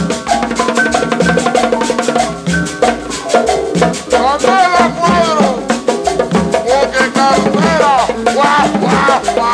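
Latin dance music in cumbia-salsa style with a steady percussion beat; from about four seconds in, swooping tones that slide up and down join the mix.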